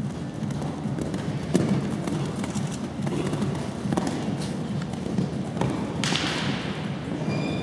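A horse's hooves thudding dully on the sand footing of an indoor arena at a canter, over a steady low hum of the hall. There is a short hiss about six seconds in.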